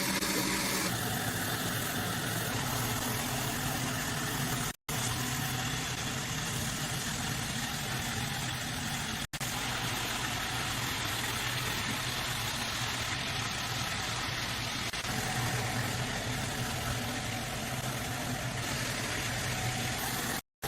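A steady hum of a running motor or machine, broken by a few brief cuts to silence.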